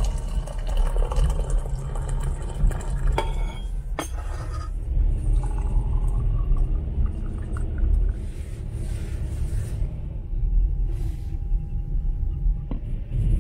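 Hot water running from a train carriage's boiler tap into a mug, then tea poured from the mug into a glass in a metal tea-glass holder, over the steady low rumble of the moving train.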